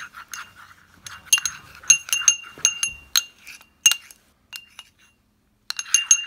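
Metal spoon stirring kids' shampoo in a ceramic bowl, clinking against the bowl's sides with a short ringing tone at each tap. The taps come in quick runs, pause briefly past the middle, and pick up again near the end. The shampoo is being whipped up to froth it before salt is added for slime.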